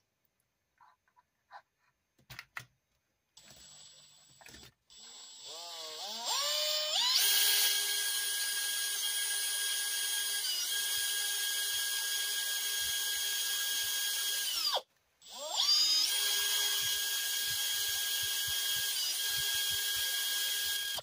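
Handheld power drill boring holes in a metal RC car chassis plate. After a few quiet seconds it spins up with a rising whine and runs steadily for about seven seconds, stops briefly, then runs again.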